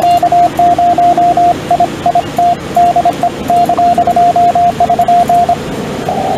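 Morse code (CW) from a ham radio transceiver: a single steady tone keyed on and off in dots and dashes for about five and a half seconds, the operator sending. The receiver's narrow-filtered hiss is cut out while the tone keys and comes back near the end, as it does when the rig switches between transmit and receive.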